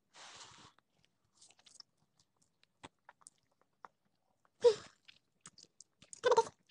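A person eating instant noodles: a short slurp of noodles at the start, then faint chewing with small mouth clicks, and a few louder mouth noises in the second half, the loudest a sharp one a little before the 5-second mark.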